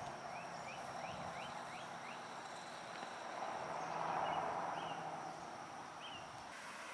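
A bird chirping: a quick run of short rising chirps, then a few single chirps spaced out, over a soft outdoor background hiss that swells briefly in the middle.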